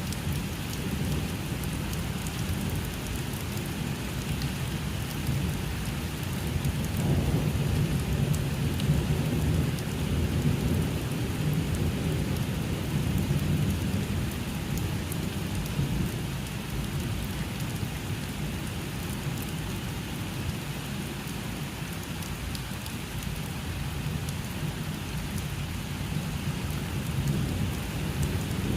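Steady rain with low rolling thunder, the rumble swelling about a quarter of the way in and again near the middle.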